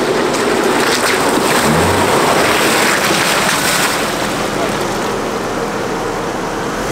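Holden Adventra driving slowly past through wet mud, its engine running and tyres churning the mud, heard as a loud steady rush that eases off near the end.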